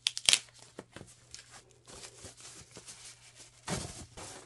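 White textured plastic packaging sleeve rustling and crinkling as it is handled and drawn off a pixel-art LED display. The sharpest crinkle comes just after the start, with smaller rustles and another loud burst near the end.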